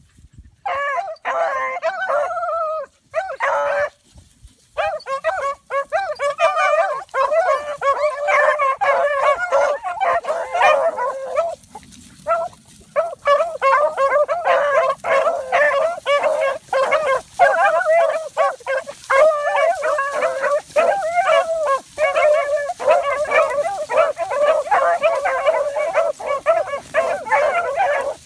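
A pack of six dogs barking together in dense, overlapping calls. After a few short bursts at the start the barking runs almost without a break, with a brief lull about twelve seconds in.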